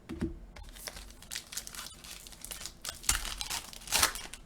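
Wrapper of a trading card pack crinkling and tearing as it is opened by hand, a run of crackles with the loudest rips a little after three seconds and again about four seconds in.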